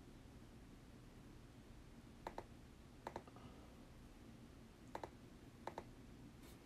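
Computer mouse clicking in quick pairs, four double-clicks spread over a few seconds against near silence.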